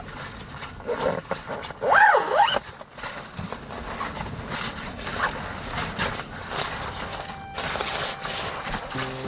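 Wind rushing over the microphone, with a short animal cry about two seconds in that rises and falls in pitch twice.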